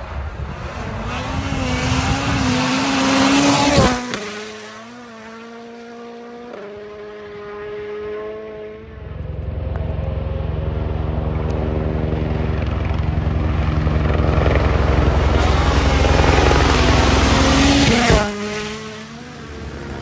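Two rally cars pass flat out, one after the other. The first rushes past about four seconds in with a sudden drop in pitch, then fades as it shifts up through the gears. The second is heard coming for several seconds and passes near the end with the same sharp drop in pitch.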